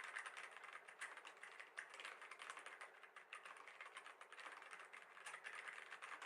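Continuous fast typing on a Vortex Core 40% mechanical keyboard with Cherry MX Silver linear switches: a dense run of rapid, overlapping key clicks.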